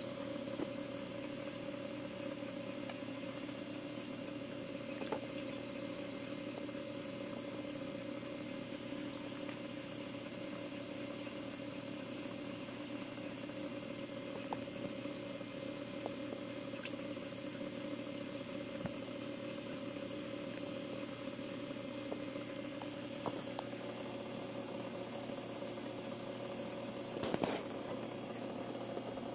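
A steady mechanical hum with a few faint clicks, and a short louder noise near the end.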